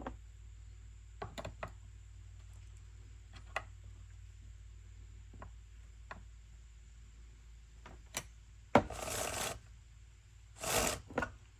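Chain tensioning on a Stihl MS 250 chainsaw: scattered light clicks and taps of a tool on the saw, then two short rasping scrapes of the chain, one about nine seconds in and one near the end.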